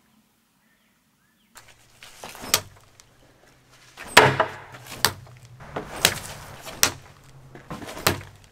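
A thrown rebar boomerang knife striking a plastic-wrapped slab of raw pork and the wooden board under it: a string of about six sharp thuds and knocks, starting about a second and a half in, the loudest about four seconds in.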